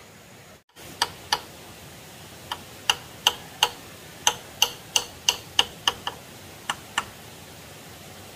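Hammer striking nails into a bamboo gatepost: about fifteen sharp, ringing taps in short irregular runs, starting about a second in.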